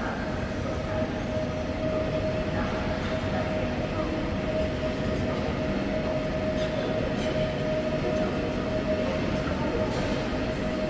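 Train running with a steady hum and rumble, holding an even pitch throughout.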